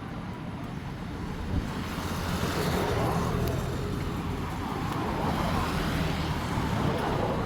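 Road traffic with a large vehicle's engine rumbling, the rumble growing louder about two seconds in.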